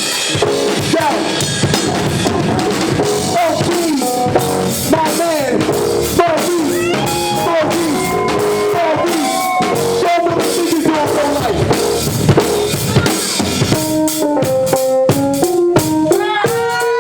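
Live band music: a drum kit with kick and snare keeping a steady beat under a melody of bending, sliding notes.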